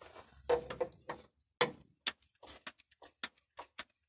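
Grease gun being pumped on a combine harvester's grease fitting: a run of short mechanical clicks, about three a second, the first few louder. Something is blocking the grease from going through, which the greaser puts down to the gun or the fitting.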